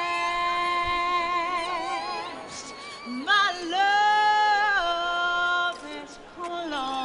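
A cappella singing: a voice holds long notes with vibrato and slides up and down between them.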